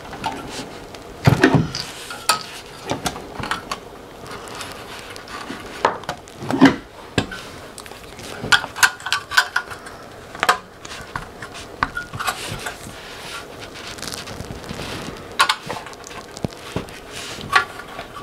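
Flat-blade screwdriver prying the metal top cover of a car radio head unit off past its retaining dimples: irregular metallic clicks, scrapes and clanks of the cover and chassis.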